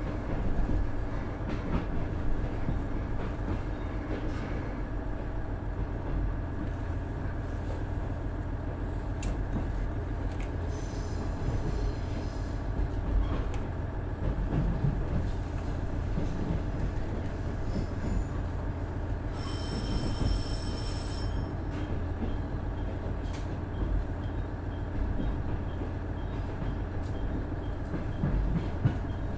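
Onboard running sound of a KiHa 110-200 series diesel railcar with its Cummins DMF14HZA engine: a steady rumble of engine and wheels on the rails, with occasional short clicks. A brief high ringing tone sounds about twenty seconds in.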